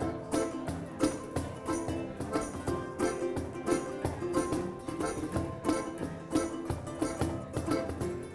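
Unplugged acoustic band playing an instrumental passage with no singing. Piano accordion chords are held over strummed acoustic guitars and ukulele, with a cajon keeping a steady, even beat.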